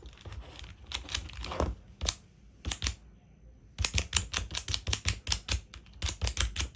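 Plastic pieces of a 3x3 Rubik's Cube sliding puzzle clicking as they are slid into place during a solve. There are a few clicks, a short pause, then a fast run of clicks, several a second, in the second half.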